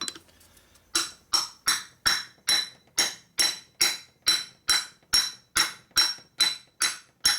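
A heavy hammer tapping a machined pipe used as a seal driver, working an oil seal into a Harley shovelhead engine case. Steady light blows, about two a second and starting about a second in, each with a short metallic ring.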